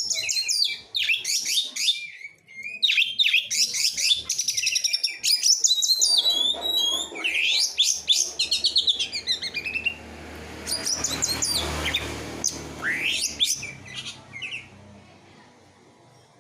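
Songbird singing rapid runs of sharp chirps and fast falling trills, high-pitched and dense, thinning out near the end, over a faint background hiss and low hum.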